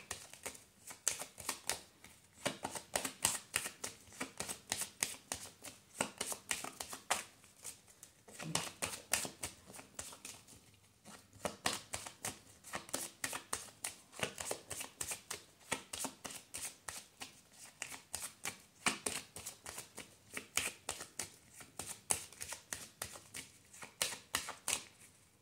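A deck of tarot cards shuffled by hand: a quick, continuous run of soft card slaps and flicks, with a short break about ten seconds in.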